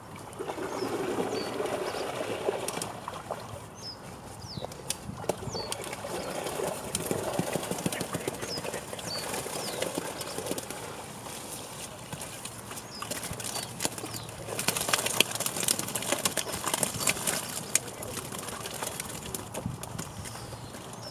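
Wet fishing keepnet and weigh sling being handled as a catch is tipped out for weighing: mesh rustling, water splashing and dripping, and fish flapping. There is a busier spell of splashing and slapping about two-thirds of the way through.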